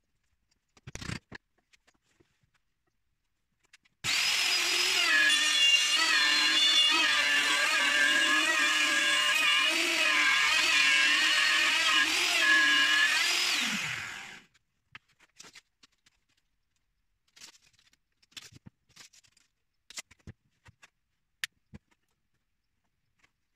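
A high-speed power tool, started and run for about ten seconds with its whine wavering in pitch as it cuts into wood, then falling away as it winds down. Scattered light knocks and clicks before and after.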